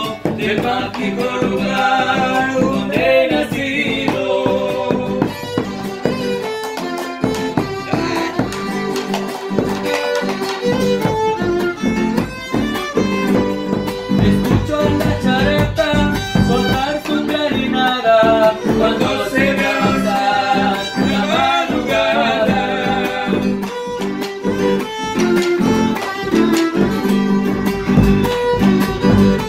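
Violin playing the melody over a strummed acoustic guitar, in a live instrumental passage between the sung verses of a song.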